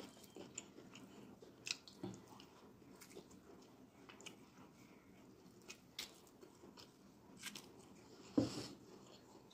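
Close-miked eating by hand: soft, wet clicks and smacks as sticky fufu and egusi soup are pulled apart with the fingers and chewed. A louder burst of sound comes near the end.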